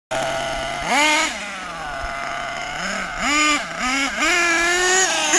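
Nitro engine (SH .28) of a Hot Bodies Lightning Stadium Sport RC stadium truck running on the throttle: a steady low idle, a sharp rev about a second in, three quick revs in a row past the middle, then held at high revs near the end. The engine has just been broken in and is not yet tuned.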